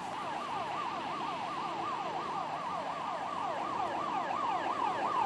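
Emergency vehicle siren in a fast yelp, its pitch sweeping up and down about five times a second and growing slightly louder.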